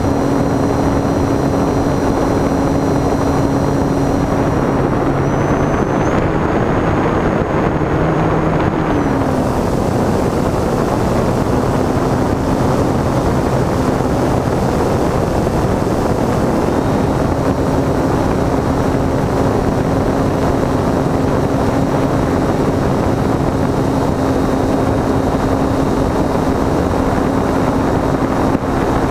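Electric motor and propeller of an E-flite Timber RC plane, heard from an onboard camera in flight: a steady propeller drone with a faint high motor whine, over heavy wind rush on the microphone. The pitch drops about nine seconds in and comes back up later on.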